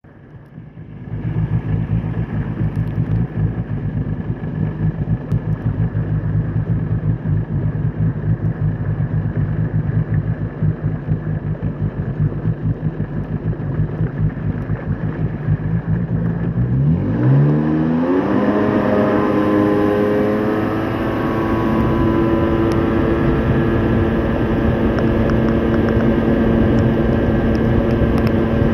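Personal watercraft engine running at low speed. About seventeen seconds in the throttle opens: the pitch rises quickly and settles into a steady, higher-pitched run at cruising speed.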